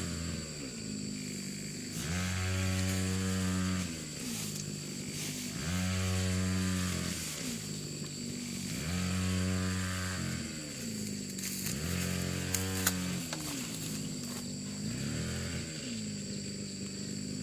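Small two-stroke engine revved up and let back down over and over, each rev rising in pitch, holding for about two seconds, then dropping. It goes about every three and a half seconds, five times, with a weaker sixth near the end.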